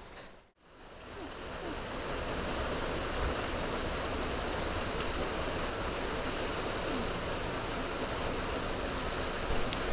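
Steady rush of flowing creek water, cutting out briefly about half a second in and fading back up to an even, unbroken level.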